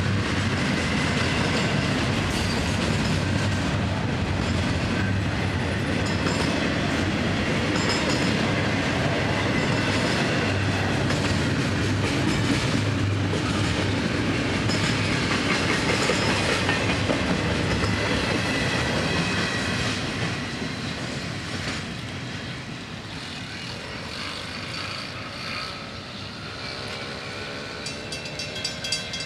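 Double-stack intermodal freight cars rolling past close by: a steady rumble with wheels clattering over the rail joints. The sound drops away about twenty seconds in as the end of the train passes and it recedes.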